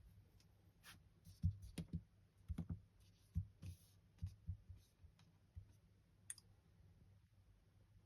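Faint, irregular clicks and soft thumps, about a dozen of them, scattered through the first six and a half seconds.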